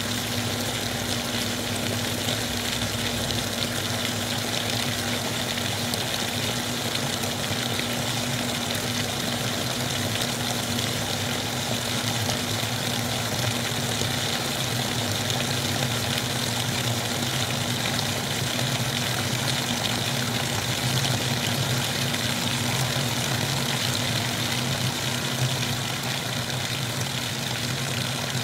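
A steady rushing noise, even from start to finish, with a low steady hum beneath it.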